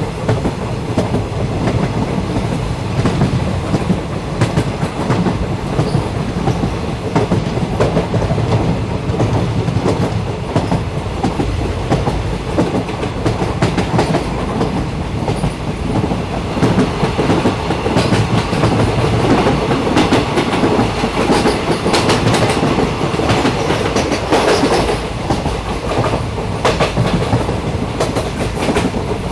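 Train running along the track with a steady rumble and clickety-clack of wheels over rail joints.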